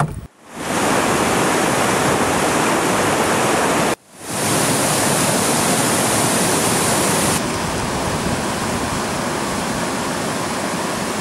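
Waterfall and whitewater rapids pouring over rock ledges: a loud, steady rush of water. It drops out briefly near the start and again about four seconds in, and its tone shifts slightly about seven seconds in.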